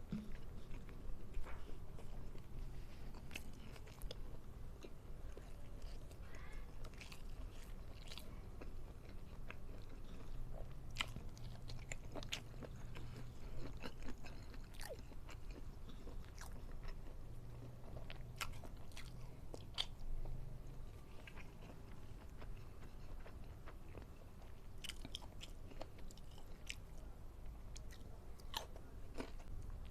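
A person chewing and biting food up close, with crunchy bites and many short sharp mouth clicks scattered throughout.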